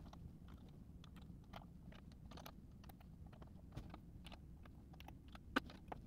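Faint, irregular clicks and ticks of a 2 mm hex key turning M3 flathead screws into small brackets on linear rail carriages, with one sharper click about five and a half seconds in.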